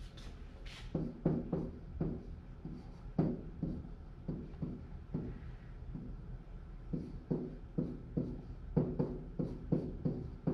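Pen tapping and scraping on an interactive whiteboard as words are written by hand: short, irregular taps that grow busier near the end, over a steady low hum.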